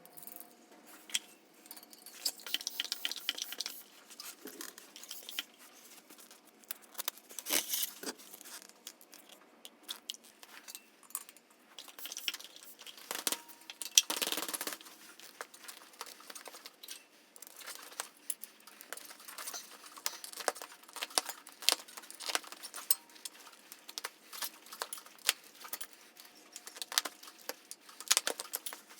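Close handling noises: irregular clicks, taps and rustling scrapes, with louder rasping bursts about eight seconds in and again around fourteen seconds.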